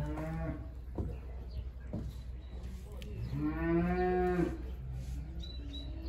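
A young calf mooing: a short call at the start and a longer, louder one about three and a half seconds in.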